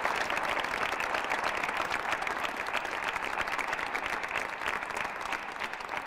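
An audience applauding: many hands clapping in a steady, dense patter that eases off slightly near the end.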